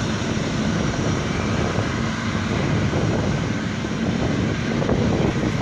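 Boeing 777's jet engines running on the runway: a steady broad rumble and hiss with a faint low hum through it.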